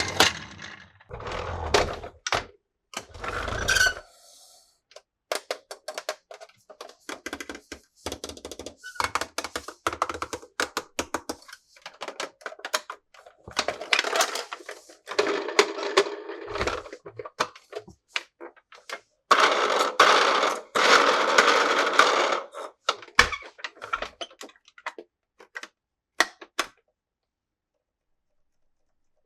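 Plastic toys and their packaging being handled during an unboxing: a run of clicks, taps and light plastic knocks, with stretches of rustling and crinkling packaging. The rustling is loudest about twenty seconds in.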